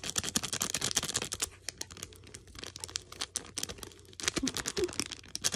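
Plastic bag of glitter crinkling and crackling in the hands as the glitter is shaken out. The crackles come in a dense run, thin out in the middle, and pick up again near the end.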